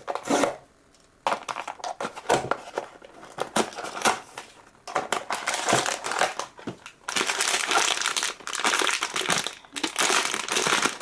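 Crinkling and rustling of a Popmart blind box's wrapping as it is handled and torn open. The rustling is intermittent at first, then denser and louder in the last few seconds.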